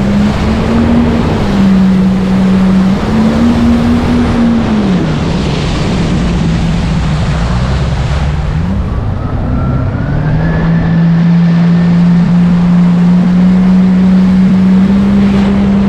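Jet ski engine running under way, its pitch stepping up and down as the throttle is worked, dropping low mid-way, then climbing steadily over the last few seconds, with the rush of water and wind.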